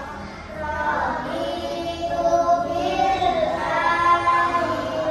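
A group of children singing together in unison, holding and bending sung notes.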